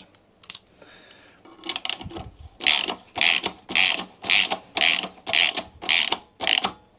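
Socket ratchet wrench worked back and forth on a mower handlebar bolt: a few faint clicks, then about eight quick ratcheting strokes, roughly two a second.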